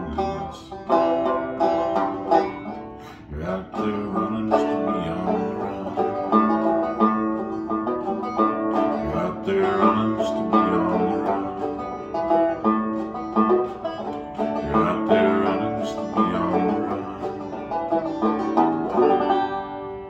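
Solo banjo playing an instrumental passage of quick plucked notes over chords. The picking stops near the end and the last chord is left to ring out and fade.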